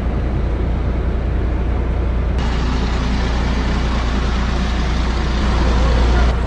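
Fishing boat engine running steadily with a low drone under rushing noise. About two and a half seconds in, the sound changes abruptly and becomes brighter and hissier.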